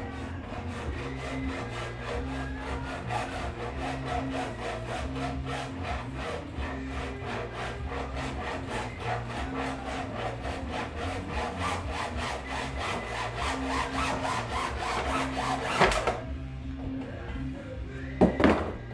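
A saw cutting off a protruding point of the wheelchair's body in fast, even back-and-forth strokes that stop about three seconds before the end. A sharp knock follows near the end.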